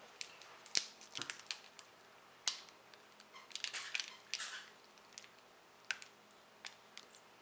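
The wrapper of a strawberry Turkish taffy bar crinkling and tearing as it is opened and handled, in a run of irregular sharp clicks and short crackles.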